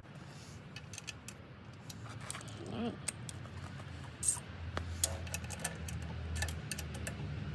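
Irregular light metallic clicks and clinks of hand tools against engine parts in a van's engine bay, with a brief hummed voice sound about three seconds in.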